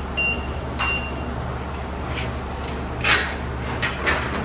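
Wheel balancer's keypad beeping twice within the first second as a measurement is keyed in, then several sharp clicks and knocks, the loudest about three seconds in, over a steady low machine hum.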